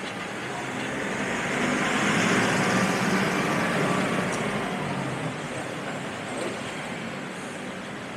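A passing road vehicle: a rushing noise that swells over a couple of seconds, then fades away.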